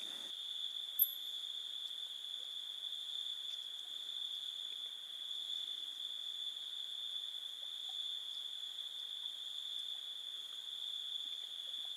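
Crickets chirping in a steady, unbroken high-pitched chorus, with one brief click about a second in.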